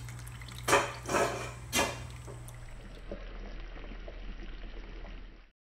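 Marinated chicken pieces scraped off a plate with a wooden spoon and splashing into a wok of curry broth: three splashes in the first two seconds. After that, a steady low hum with faint pops, and the sound cuts off suddenly near the end.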